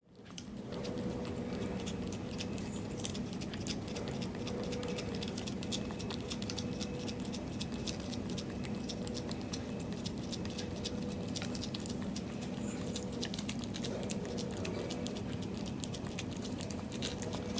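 Munchkin cat licking a Churu paste treat up close: rapid, wet tongue clicks and smacks without pause, over a steady low hum.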